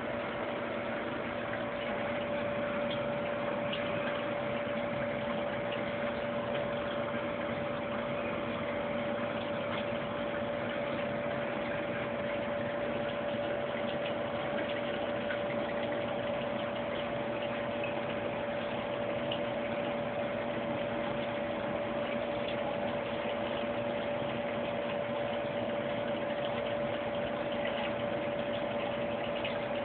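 A steady hum with a constant mid-pitched tone over an even hiss, unchanging throughout.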